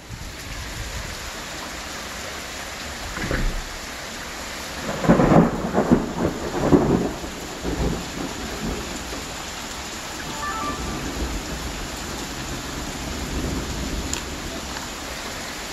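Heavy rain falling steadily during a thunderstorm, with a loud peal of thunder about five seconds in: several sharp cracks close together, then rumbling on for a couple of seconds.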